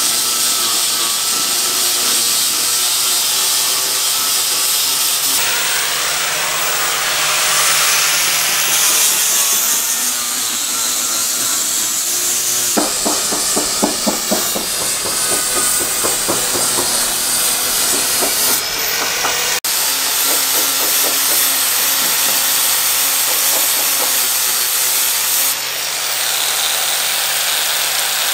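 Electric angle grinder with a sanding disc grinding into a fibreglass sailboat hull: a steady, high hissing grind that cuts off and restarts a few times, with a stretch of rapid rhythmic chatter near the middle. It is grinding out osmosis blisters through the gelcoat into the laminate.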